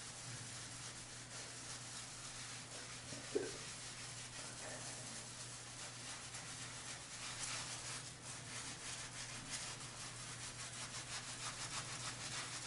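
Faint scrubbing of a silicone facial cleansing pad rubbed over skin, in quick repeated strokes that are most noticeable in the second half, over a steady low hum. One short, sharper sound about three seconds in.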